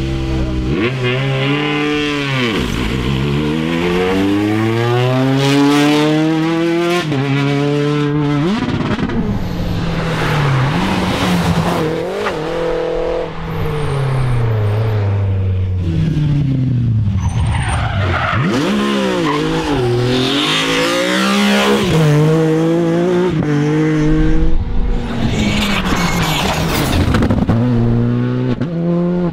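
Rally cars driven flat out past one after another, including a Peugeot 208 R5 and a BMW E36. Their engines rev up through the gears and drop sharply on lifts and downshifts, and the tyres squeal and skid in places.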